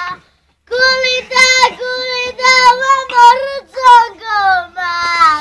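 A child singing solo, holding long notes that bend and slide from one pitch to the next. The voice breaks off for about half a second near the start, then the song goes on.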